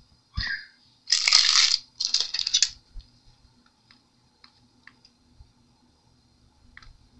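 Handling noise from the diamond painting canvas and its clear plastic cover film: a soft thump, then two short bursts of crinkling and rustling, then a few faint clicks.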